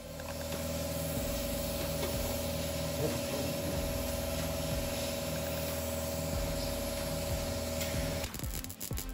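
MIG welder running on car body steel: a steady frying hiss with a constant hum under it, which cuts off abruptly about eight seconds in.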